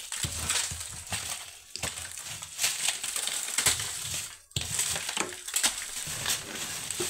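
Dry crunching and scraping as a wooden plank is pushed against a large papery wasp nest under a roof, breaking it apart in irregular cracks and rasps. The noise stops briefly about four and a half seconds in.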